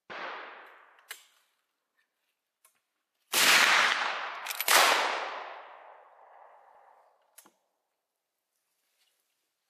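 Gunshots from a replica Winchester Model 1894 lever-action rifle in .38-55, loaded with black powder cartridges. A quieter report comes right at the start, then two loud shots about a second and a half apart, each with a long fading echo. Two short sharp clicks fall between and after them.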